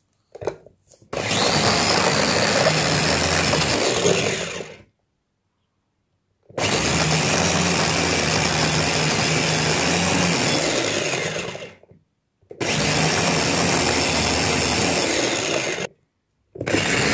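Electric blender puréeing a hot mixture of cooked mandarins, garlic and lemon in water. It runs in four bursts of about three to five seconds each, with a steady motor hum under the whir and silent breaks between the bursts.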